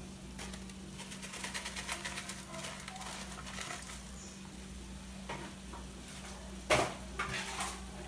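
Light clinks and scraping of a plastic tub and wooden spoon against an aluminium pot as chopped parsley is tipped into sautéing meat and vegetables, with a sharper knock near the end.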